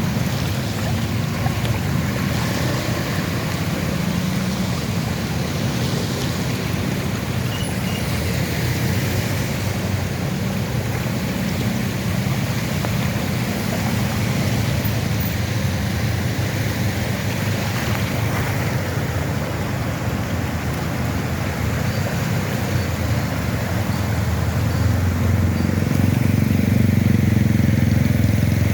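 Street traffic driving slowly through calf-deep floodwater: engines of motorbikes and cars running under a steady wash of water, with a vehicle coming closer and louder near the end.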